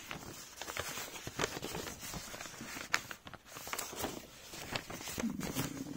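Ballpoint pen writing on paper: irregular scratches and small taps as a chemical structure is drawn. A short hummed voice about five seconds in.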